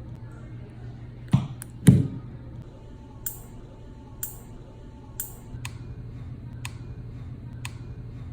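Two dull thumps about half a second apart, then a run of sharp, thin clicks roughly once a second, over a steady low hum.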